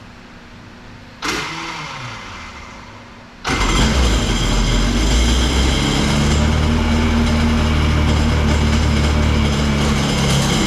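Freshly rebuilt Kawasaki 750 two-stroke jet-ski engine, bored out to 800, starting after being primed. About a second in there is a short burst that falls in pitch and fades. About three and a half seconds in the engine fires and keeps running at a steady idle.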